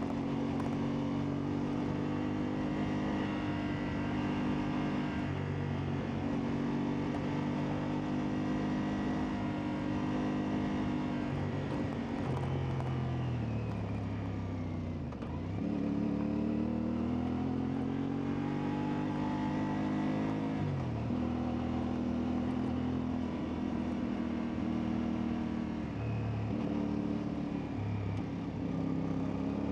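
CFMoto 450MT's parallel-twin engine running at fairly steady revs while riding. About halfway through the engine note drops to a low and then climbs back up, and the revs shift briefly a few more times near the end.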